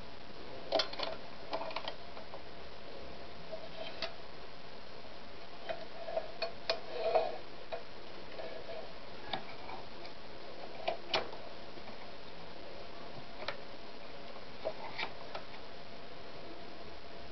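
Irregular small clicks and light clatter of a sewing machine's parts being handled, a few seconds apart, with a short cluster of knocks about seven seconds in.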